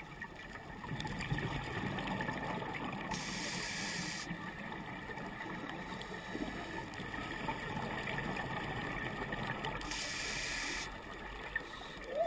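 Scuba divers breathing underwater through regulators: two exhaled bubble bursts, each about a second long and some seven seconds apart, over a steady low underwater rumble.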